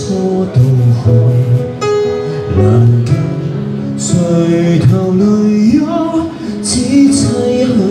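A singer performing a Chinese song into a microphone while accompanying himself on a Roland XV-88 keyboard, the voice holding and gliding between long notes over sustained keyboard chords.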